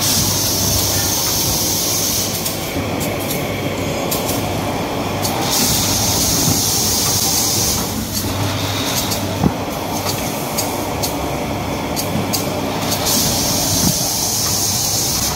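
Multi-roll kitchen towel bundle packaging machine running: a steady mechanical clatter over a low hum, with quick regular clicks from its mechanisms. A high hiss comes and goes for a couple of seconds at a time, three times, and there is one sharper knock about nine seconds in.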